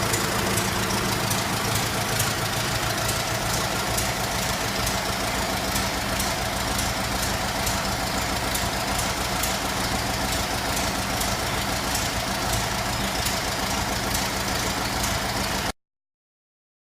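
1924 Ford Model T's four-cylinder flathead engine idling steadily, with a light regular ticking over the engine note. The sound cuts off suddenly about a second before the end.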